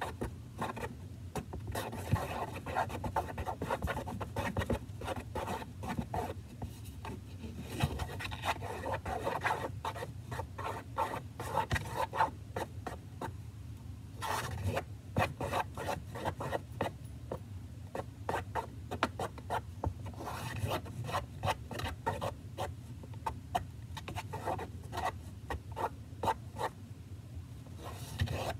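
A utensil stirring a foamy shaving-cream slime mixture in a plastic tub, rubbing and scraping against the tub in quick repeated strokes, with a few short pauses.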